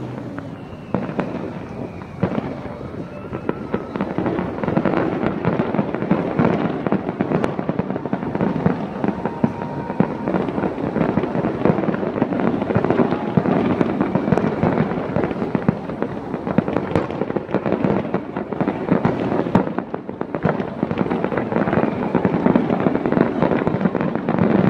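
Fireworks display: a continuous run of bursts and crackling, many sharp reports following one another without a break.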